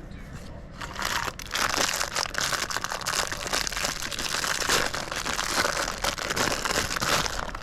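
Packaging crinkling and rustling as it is handled and opened, starting about a second in and running as a dense crackle of small clicks until just before the end.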